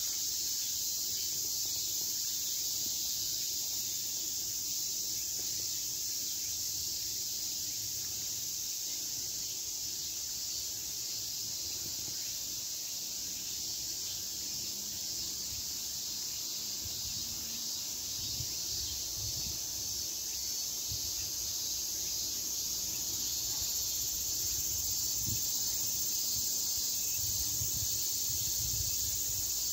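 Steady, high-pitched insect chorus, unbroken throughout, with some low rumbling bumps in the second half.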